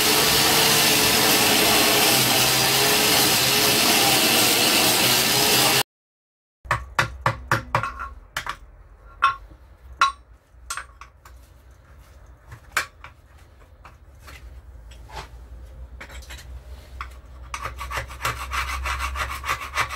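Old paint and rust being scrubbed off a 14-inch wheel rim with a steel wire brush and sandpaper. A loud, continuous scrubbing runs for about six seconds; after a short break come scattered scrapes and knocks, building into quick rubbing strokes near the end.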